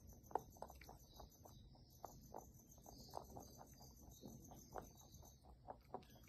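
Angora rabbit chewing a treat: faint, irregular crunching clicks, a few a second, over a faint steady high hiss.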